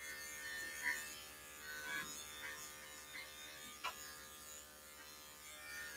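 Corded electric dog-grooming clipper running with a faint steady hum as it is worked through a cocker spaniel's coat. A short click about four seconds in.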